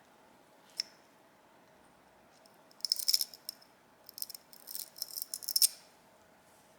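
Small metal tools and parts clicking and rattling on a workbench: one click, then two runs of quick light clinks.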